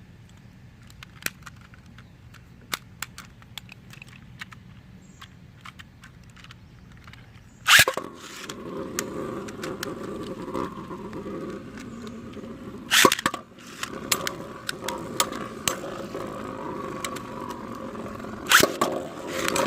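Scattered small plastic clicks, then about eight seconds in Beyblade tops are launched with a loud rip and spin on the plastic stadium floor with a steady scraping whir. Sharp clacks of the tops hitting each other or the stadium wall come twice, about 13 and 18 seconds in.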